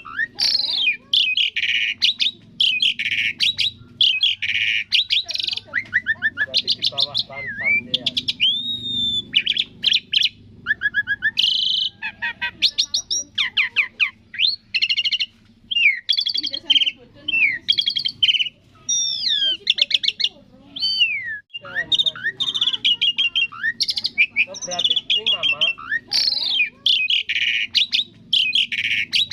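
Asian pied starling (jalak suren) singing a long, varied song of chirps, whistled glides and fast rattling trills, with brief pauses between phrases.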